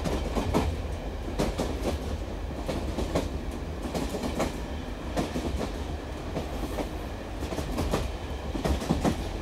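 Railway carriage riding along the track: a steady low rumble with the wheels clacking over rail joints at irregular intervals.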